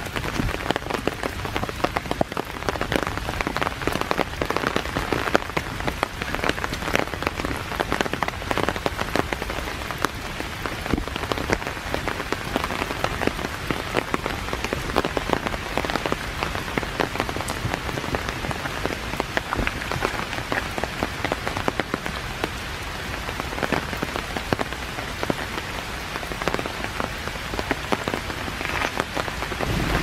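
Steady rain: a continuous hiss dotted with a dense patter of individual drops.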